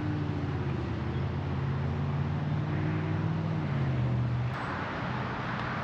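A vehicle engine running steadily at an even pitch, dropping slightly about four seconds in, with a rise in rushing noise near the end.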